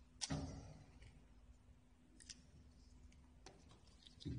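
Quiet clicks and knocks of a hand impulse heat sealer's parts being handled while it is taken apart: a sharp click about a quarter second in, a few light clicks in the middle, and a duller knock near the end as a metal part is set down on the table.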